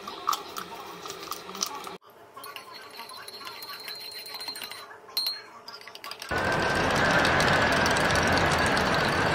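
A metal spoon clinking against a ceramic mug while stirring coffee. About six seconds in, a loud steady rushing noise with a faint whine takes over and cuts off abruptly at the end.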